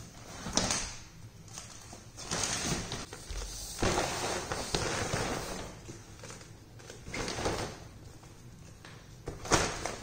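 A pop-up fabric cat tunnel rustling in several bursts of about a second each as a kitten scrambles through it and pushes against it, with a few sharp taps.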